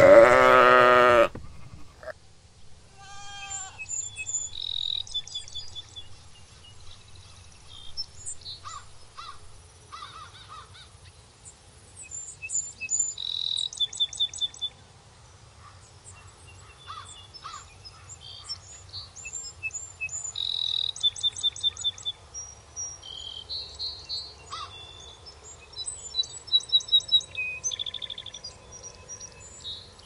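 A sheep bleats once, loud and wavering, for about a second at the start. Then small songbirds chirp and sing rapid trills on and off.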